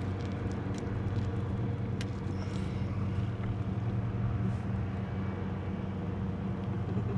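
Steady low motor drone that holds one pitch throughout, with a few faint clicks over it.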